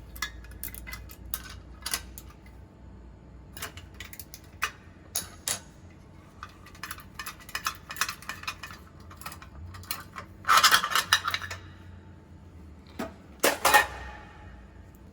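Hand tools and metal parts of a bottle rinser's neck-clamp mechanism clicking and clinking while it is taken apart, with two louder rattling clatters, one past the middle and one near the end.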